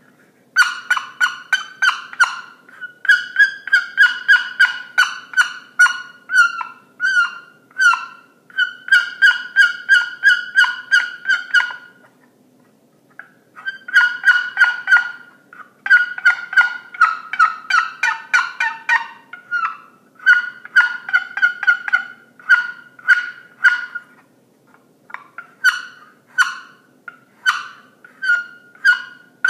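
Wooden paddle-lid box turkey call worked by hand, giving strings of quick, sharp turkey-like notes with short pauses between runs and a break of about two seconds near the middle.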